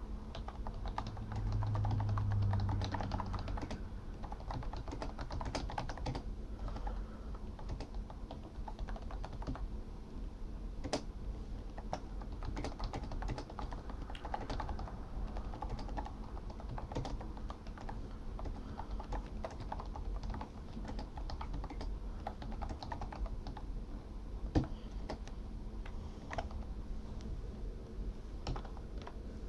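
Continuous typing on the rubber-dome chiclet keys of a Microsoft All-in-One Media Keyboard: a fast, quiet patter of soft key clicks, with one sharper key strike late on.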